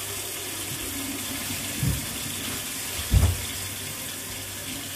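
Kitchen tap running steadily into a sink, with two dull thumps about two and three seconds in, the second the louder.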